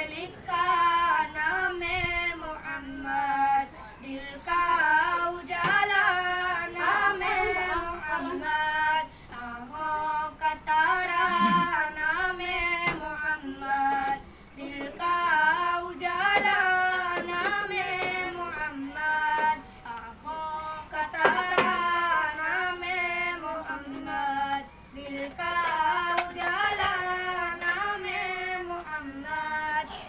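A naat, Islamic devotional song, sung in a high voice in long melodic phrases with short pauses between them.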